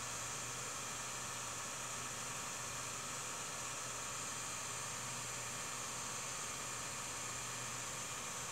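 Steady hiss with a faint low hum underneath and nothing else happening: the noise floor of a silent home-movie film transfer.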